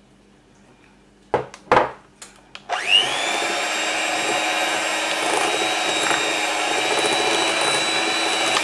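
A few knocks, then an electric hand mixer starts about three seconds in with a quick rising whine. It runs at a steady pitch, its beaters churning flour into a soft cookie batter in a glass bowl.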